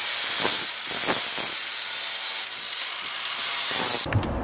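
Electric angle grinder with a sanding disc running at speed: a high, steady whine with a hiss, its pitch sagging a little and recovering, then it stops near the end.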